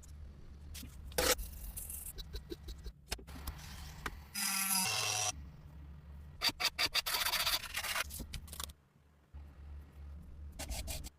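Parts of an old gun being scraped and rubbed in short bursts of restoration work, with a brief pitched whine a little over four seconds in and a run of quick repeated strokes after it.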